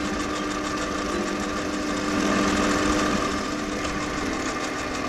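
Metal lathe running, its motor and drive giving a steady hum while the cutting tool turns a bronze-filled PTFE rod, shedding curled chips. The running gets a little louder for a second or so in the middle.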